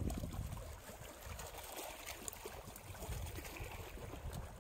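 Wind buffeting the microphone in uneven gusts, with river water lapping and trickling against the rocks of the shore. The strongest gust comes right at the start.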